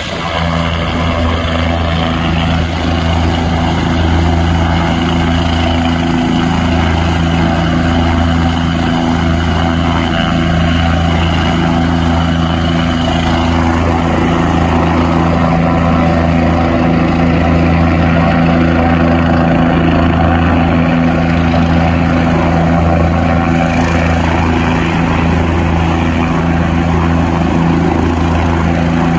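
Helicopter running on the ground with its rotor turning: a steady high turbine whine over a constant low engine and rotor drone.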